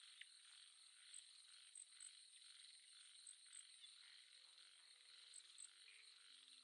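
Near silence with a faint chorus of calling animals: a steady high hiss with soft pulses repeating every fraction of a second. Faint held music notes fade in about four seconds in.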